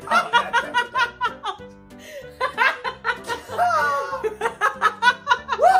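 A woman laughing hard in quick repeated bursts, with background music underneath.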